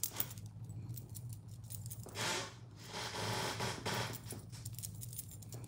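Faint handling noise: soft rubbing and light clicks and clinks from bracelets on a moving wrist as a makeup sponge is dabbed on the face. There are two longer soft hissing rushes, about two and three seconds in, over a steady low hum.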